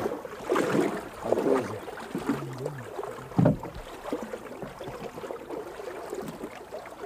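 A paddled canoe on the water: irregular sloshing and paddle strokes, with one heavy knock about three and a half seconds in.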